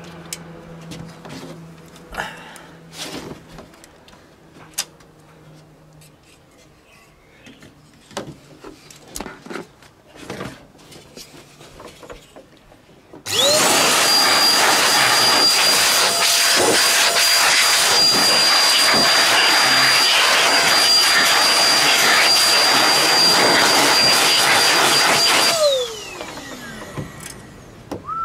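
High-pressure air blower switched on about halfway through. Its motor whines up to a steady high pitch over a loud rush of air and runs for about twelve seconds, blowing built-up dust out of a PC's watercooling radiators, then winds down as it is switched off. Before it, scattered light clicks and knocks of handling.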